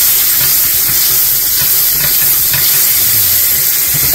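Diced pork frying in a nonstick skillet, a steady, loud sizzle as its fat renders down. A spatula scrapes through the pieces now and then.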